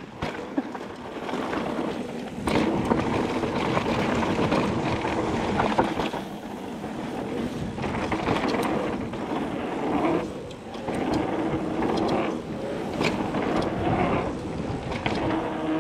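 Nukeproof Mega 275 mountain bike ridden fast down a dirt jump trail: a steady rush of wind and tyre noise on the helmet camera's microphone, with a few sharp knocks from the bike.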